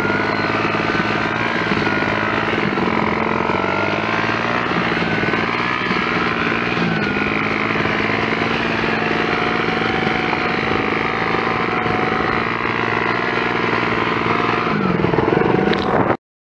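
Small motorcycle engine running at a steady cruising speed on the move, its pitch wavering slightly with the throttle, dipping and then rising near the end before the sound cuts off suddenly.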